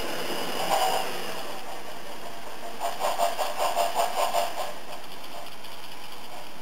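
Digital sound decoder of a Märklin BR 10 model steam locomotive playing steam-engine chuffs through its small speaker, a run of about three to four chuffs a second in the middle, over a steady hiss.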